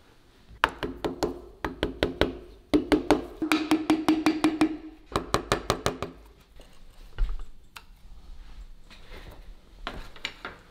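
Hand tools at work on a BMW N54 engine block: about five quick runs of sharp metallic clicks with a short ringing note, then a few lone taps near the end.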